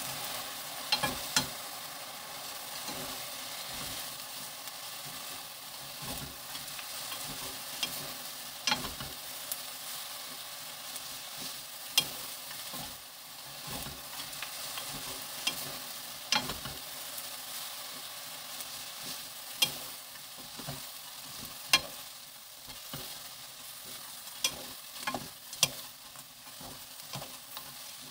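Crisp fried dried-pepper chips (gochu-bugak) sizzling in soy sauce and corn syrup in a nonstick frying pan as two wooden spatulas toss them: a steady high sizzle with frequent sharp clicks as the spatulas and crisp pieces knock against the pan.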